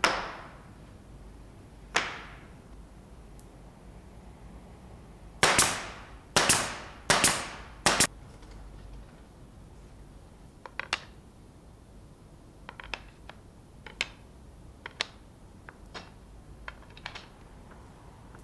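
A nail gun fires four times, sharp cracks a little under a second apart, a few seconds in. Before them come two heavy knocks of boards set down on a steel table, and later a scatter of light wooden clicks as oak slats are laid into the jig.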